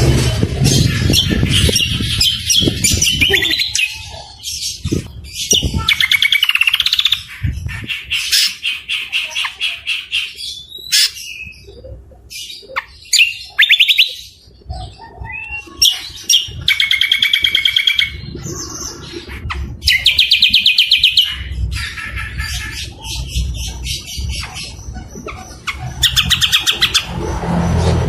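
Songbirds singing loudly: a busy run of rapid trills, chattering notes and short whistled phrases with brief gaps between them, over a low background rumble.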